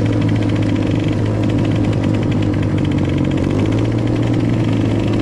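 Small dirt bike engine running at a low, steady throttle, its pitch stepping up slightly about three and a half seconds in.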